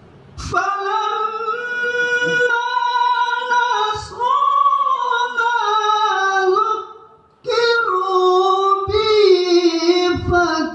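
A male reciter chanting the Qur'an in the melodic tilawah style: long, high, ornamented held notes that bend slowly in pitch, with a short pause about seven seconds in.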